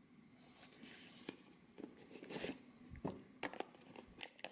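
Faint handling of a Funko Mystery Minis box: soft crinkling and rustling of the packaging with irregular small clicks and taps.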